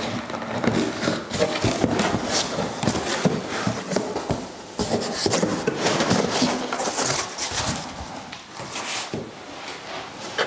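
Cardboard box being opened by hand: a cardboard cover and flaps scraping and rubbing, with a run of rustles and light knocks as the contents are handled.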